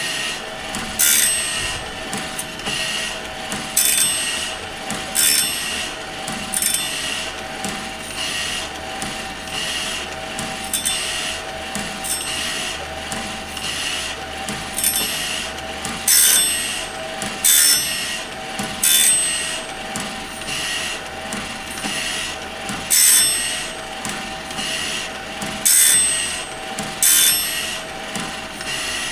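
Woodland Mills band sawmill blade sharpener running: the grinding wheel's motor hums steadily and scrapes sharply each time the wheel drops onto a tooth, about once every second and a half, as the blade is indexed round tooth by tooth.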